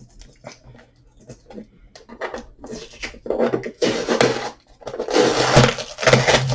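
Cardboard shipping box being pried and torn open by hand, which is proving hard to open: scattered scratches and crinkles at first, building about halfway into loud continuous tearing and rustling of the packaging.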